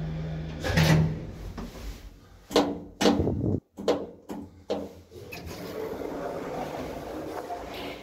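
Gendre Otis lift with a single-speed drive: its steady hum stops with a thump about a second in as the car lands. Then a run of sharp clacks and knocks as the lift doors and latch are worked open, followed by softer rubbing and shuffling.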